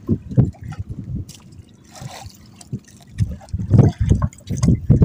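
Water lapping and sloshing against the hull of a small outrigger boat in irregular low splashes.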